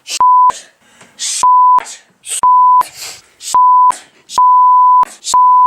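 A run of censor bleeps covering swear words, six in a row: each is a steady tone near 1 kHz lasting a fraction of a second, with the fifth a little longer. Short hissy fragments of sound fall between them.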